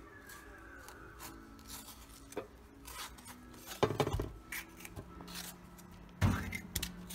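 Small kitchen knife cutting a tomato into wedges, a soft scraping and rubbing, with parchment paper rustling in a glass baking dish. Two louder knocks come about four seconds in and just after six seconds.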